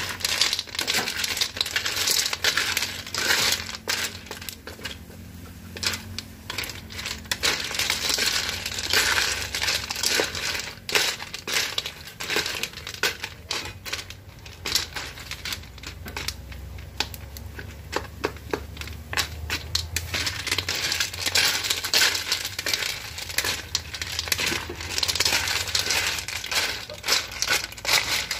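Telescope snail shells clattering against a metal pan as a wooden spoon stirs them, the clicks coming in bursts, over the hiss of the cooking liquid sizzling in the pan.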